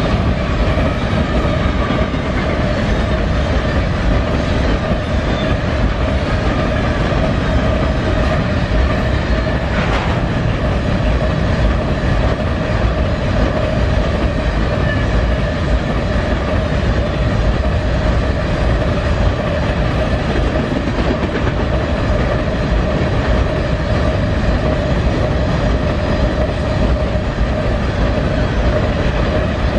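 An empty potash train's Canpotex covered hopper cars rolling past, their steel wheels on the rails making a loud, steady rumble with a steady ringing tone over it. One sharp click about ten seconds in.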